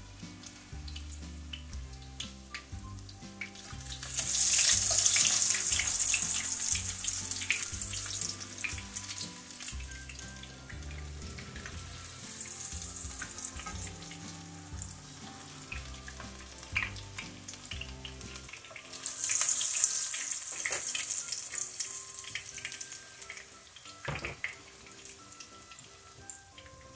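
Salmon fritters sizzling in hot vegetable oil in a frying pan, the sizzle swelling loudly twice, with light clicks and scrapes of a spatula and fork in the pan. Background music plays underneath until about two-thirds of the way through.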